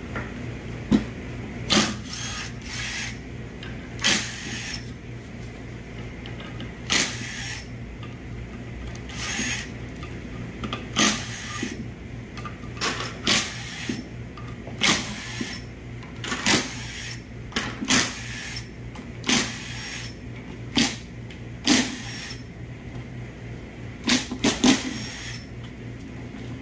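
A small cordless power driver spinning out the 7 mm valve-body bolts of a 6L80 transmission in short bursts, each under a second, repeated fifteen or so times a second or two apart.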